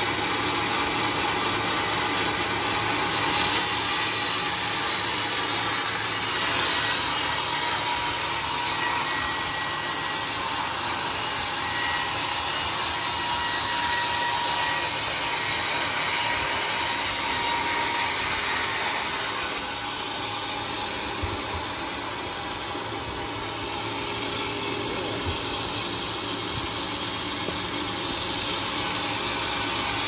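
Homemade band sawmill running steadily as its blade cuts through a teak log, the machine noise easing a little for several seconds in the second half.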